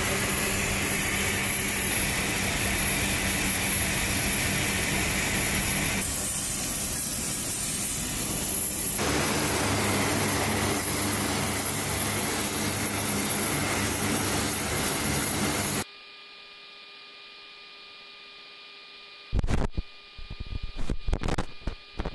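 Lockheed C-130J Hercules turboprop engines and propellers running steadily, a loud even roar with a steady hum. About sixteen seconds in the roar cuts off to a quieter hiss with steady tones, and near the end come several sharp irregular clicks and knocks.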